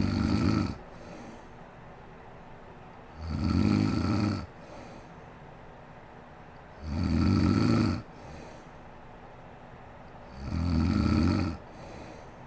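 A sleeping woman snoring in a steady rhythm. Each rough, low snore lasts about a second and comes every three and a half seconds or so, four in all, each followed by a short, softer breath.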